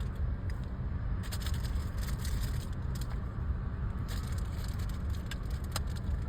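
Steady low outdoor rumble with scattered light crackles and clicks.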